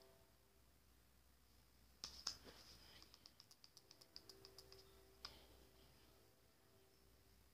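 Near silence with faint clicks: a sharp click about two seconds in, then a quick run of small ticks, about eight a second, for roughly two seconds, and one more click a little past five seconds.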